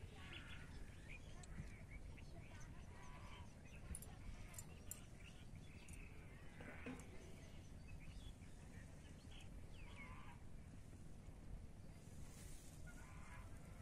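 Faint outdoor ambience: a steady low wind-like rumble with scattered faint, distant short calls, and a soft hiss near the end.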